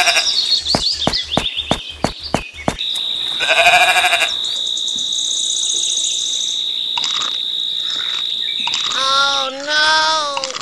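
Sheep bleating: a short bleat about three and a half seconds in and a longer, wavering bleat near the end. A steady high-pitched tone runs under the middle, and a quick series of sharp clicks comes in the first few seconds.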